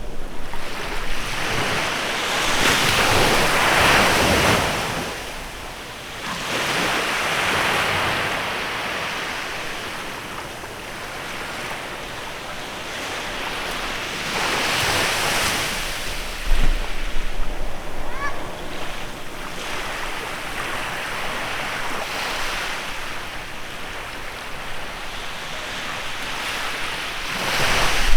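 Waves breaking and washing up on a bay beach, swelling and fading every several seconds, with wind buffeting the microphone now and then.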